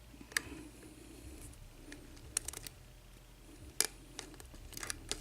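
Lock pick and tension wrench working the pins of a six-pin ERA euro cylinder during single-pin picking: scattered small, sharp metallic clicks and ticks, with a faint hum underneath.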